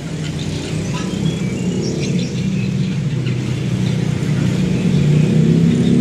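A motor vehicle's engine running nearby, a low hum that grows steadily louder, with faint bird chirps above it.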